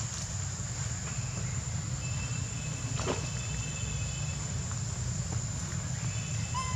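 Outdoor ambience of insects droning steadily at a high pitch over a low, steady rumble, with a faint click about three seconds in and a brief squeak near the end.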